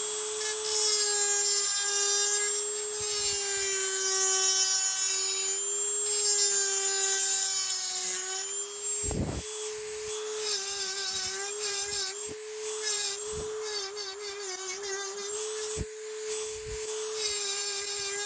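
Handheld rotary tool running at a steady high whine, its chainsaw-sharpening grinding stone grinding out the exhaust port of a two-stroke engine cylinder. The grinding sound on the metal comes and goes over the steady motor note, with a few short knocks.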